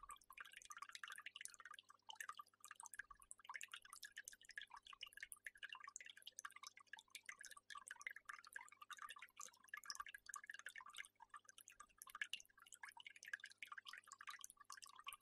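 Faint water dripping and trickling: many small drips in quick, irregular succession, over a faint steady hum.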